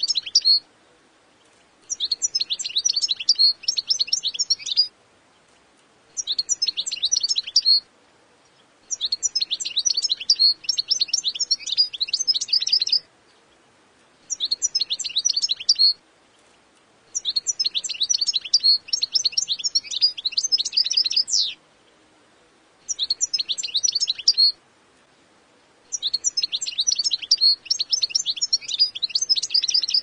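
European goldfinch singing in repeated phrases of rapid, high twittering notes. Each phrase lasts one to four seconds, with short pauses between them.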